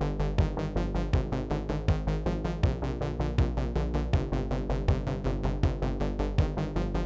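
Electronic background music with a steady drum-machine beat and synthesizer chords.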